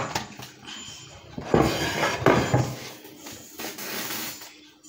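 Scraping and rubbing against an oiled baking dish in a kitchen, in two spells of quick noisy strokes, with a sharp knock at the start.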